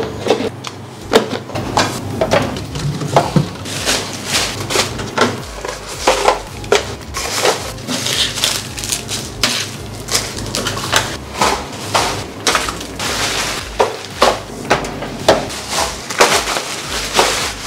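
Disposable plastic takeaway trays and lids being stacked and packed into a plastic carrier bag: irregular clacks of hard plastic knocking together, with crinkling of the bag.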